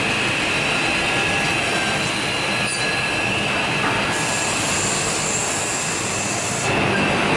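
Homag KL 26 edgebanding machine running, a steady high-pitched whine over a constant mechanical hiss; the upper hiss shifts about four seconds in and again near the end.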